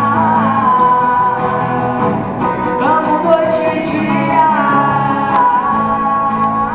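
Music: a song with guitar accompaniment and a held melody line that slides smoothly between notes.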